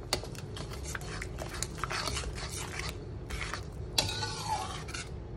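Metal slotted spatula stirring and scraping a thick, bubbling chili sambal in a pan, a run of short scrapes with a sharper knock against the pan about four seconds in. The sambal is being stirred down until it is thick and nearly dry.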